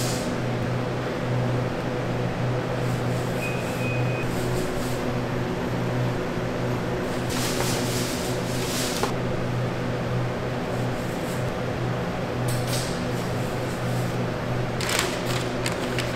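Steady hum of bakery production machinery, with a couple of brief noisy swishes partway through and near the end.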